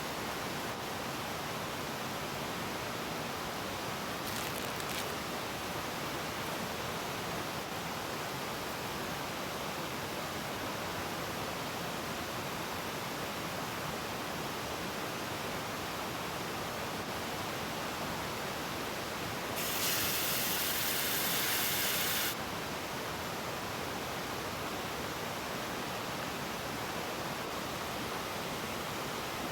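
Valley stream rushing steadily over rocks. About twenty seconds in, a louder high hiss joins it for about three seconds and then stops suddenly.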